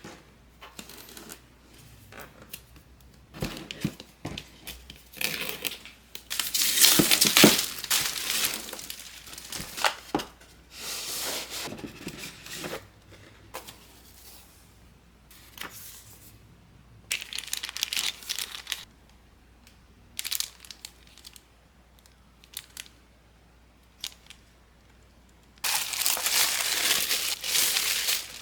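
Keyboard packaging being opened by hand: tearing and crinkling of paper and plastic wrap, in irregular bursts with a few small knocks. There is a longer, louder stretch of tearing near the end.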